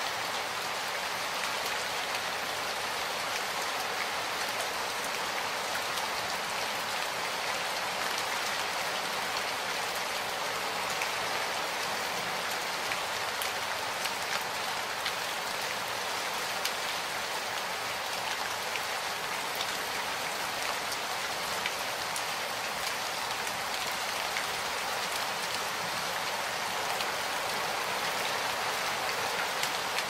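Steady rain falling: an even hiss with scattered individual drops ticking through it.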